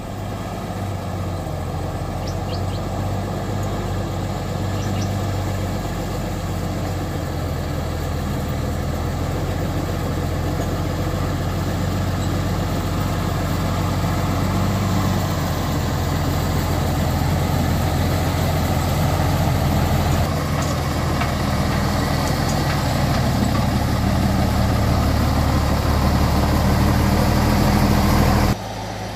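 A motor vehicle's engine running steadily with a low hum and road noise, its level creeping up slightly, then dropping suddenly near the end.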